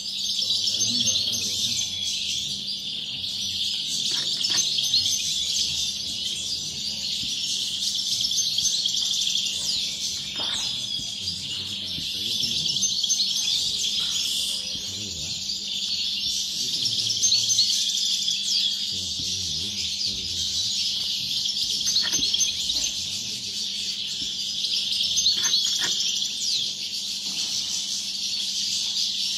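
Several caged European goldfinches singing at once: a continuous, overlapping high twittering chorus.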